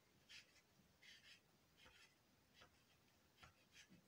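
Near silence broken by about six faint, short scratching and rustling noises: a hand handling the camera on its selfie stick.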